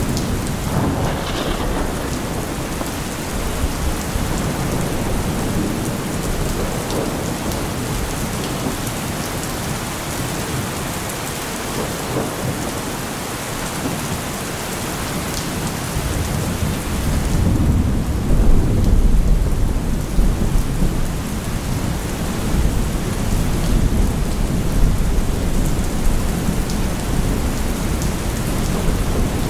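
Steady rain falling, with thunder: a deep rumble swells up a little past halfway and rolls on low to the end.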